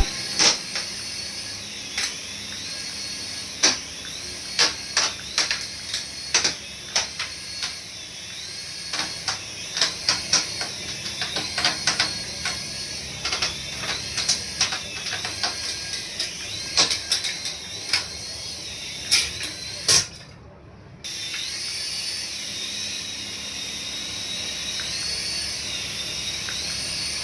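A toy's small electric motor whirring with a faint wavering whine over a steady hiss, mixed with frequent clicks and knocks of plastic being handled. The sound cuts out briefly about twenty seconds in.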